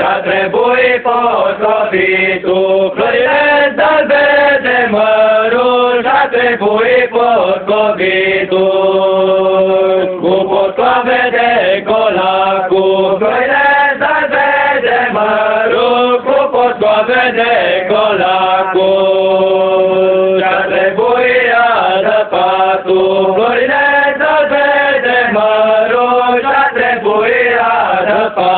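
A group of young male carolers singing a Christmas carol together, mostly in unison, with long held notes that step up and down in a chant-like melody.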